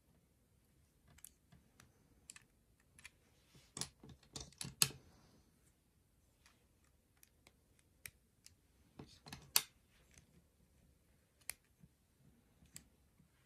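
Plastic Lego plates and bricks being handled and pressed onto studs: scattered light clicks, with two flurries of louder snaps about four seconds in and about nine seconds in.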